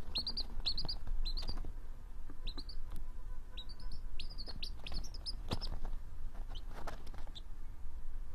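Baby chick peeping: short high cheeps, each falling in pitch, often in quick runs of two or three, thinning after about five seconds to a couple of faint single peeps.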